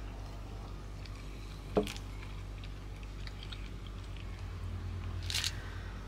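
Steady low hum of a moving car heard from inside the cabin, with one sharp click about two seconds in and a brief rustling burst near the end.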